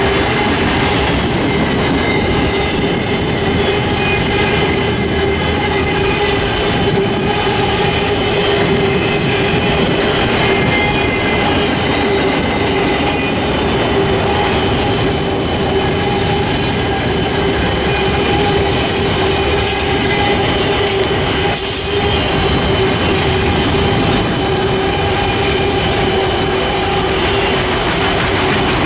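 Freight train rolling steadily past: the rumble of wheels on rail with a steady squeal from the wheels.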